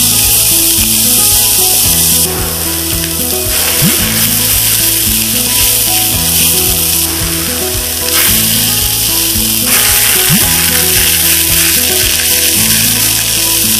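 Chopped onions and chilies sizzling as they fry in oil in a pan, with a spatula stirring and scraping through them. Background music with held low notes plays throughout.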